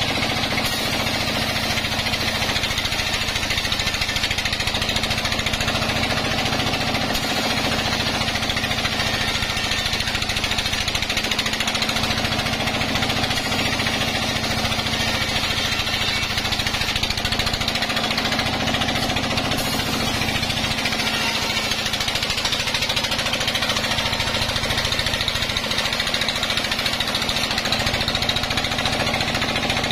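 Vertical band saw running and ripping a log lengthwise, a loud, steady, unbroken machine noise with a constant hum under it.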